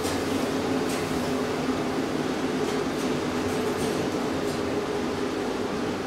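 Old Schlieren traction elevator travelling at full speed after starting off: a steady mechanical hum from the drive, with a few faint clicks along the way.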